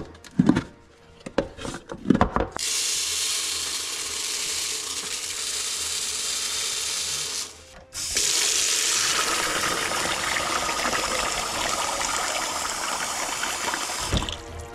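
A few sharp snaps from the lid of a plastic tub. Then a steady rattling hiss for about five seconds as dry gel-ball beads pour into the tub. After a short break, tap water runs into the plastic tub in a steel sink.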